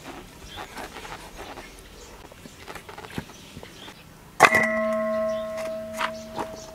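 A fish head dropped into a stainless steel bowl: one sharp clang about four and a half seconds in, the bowl ringing on for about three seconds. Before it, only faint small knocks.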